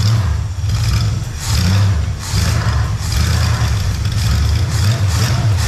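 Ford 351 Windsor (5.8 L) V8 with a four-barrel carburetor, running on the floor outside the car. Its speed rises and falls a few times in the first couple of seconds as the throttle is worked by hand at the carburetor, then it runs on steadily.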